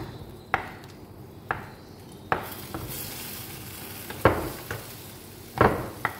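A spatula knocks and scrapes against a glass baking dish while mashing and stirring baked feta and roasted cherry tomatoes, about six strokes, the loudest a little past four seconds in and again near the end. A light sizzling hiss comes from the hot dish.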